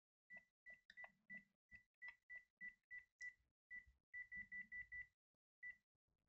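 Panasonic KX-TGJ322 cordless phone's keys beeping as buttons are pressed one after another. About seventeen short beeps at the same pitch, each with a soft click, spaced irregularly, with a quick run of five near the end.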